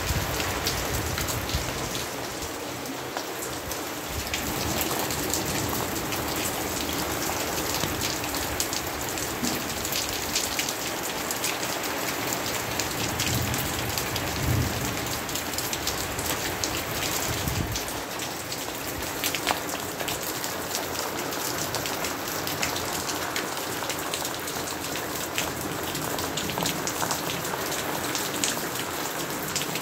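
Steady rain falling: an even hiss packed with many close, sharp drop hits.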